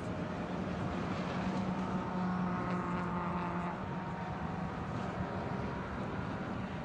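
Suzuki Swift race cars' engines running at speed on track: a steady engine note that swells about two seconds in and eases off again.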